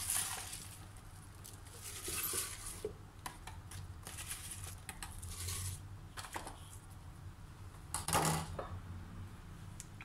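Handfuls of fresh basil leaves rustling as they are pushed into a clear plastic blender cup, with light taps and clinks against the plastic. The handling comes in several short spells, the loudest about eight seconds in.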